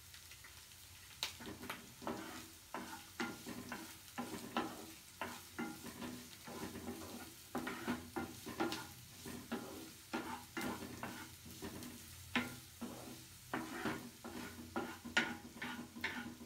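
A spatula stirring and scraping chopped vegetables (onion, capsicum, green chilli, garlic) around a frying pan of hot coconut oil on a low flame, with quiet sizzling under the strokes. The scrapes come irregularly, about one or two a second.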